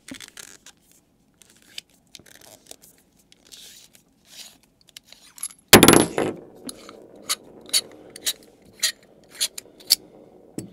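Metal parts of a Vaperz Cloud Valkyrie XL rebuildable atomizer being twisted apart and handled: soft scraping at first, then a loud metallic clatter about six seconds in, followed by a string of sharp metal clicks, about two a second.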